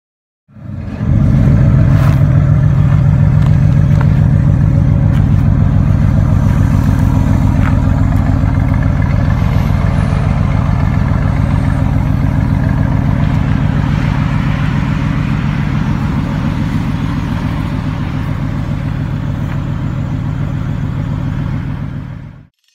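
V8 engine starting up, rising quickly to a loud flare, then idling steadily and low-pitched; the sound stops abruptly near the end.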